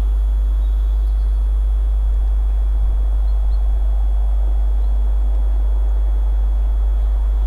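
Steady deep rumble of wind on the microphone, with the faint running noise of a distant approaching Allegro high-speed electric train.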